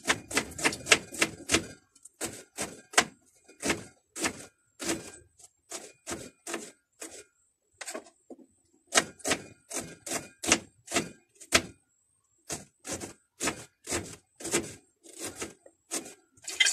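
Knife chopping onions on a chopping board: a steady run of sharp knocks, about two to three a second, with a short pause about halfway through.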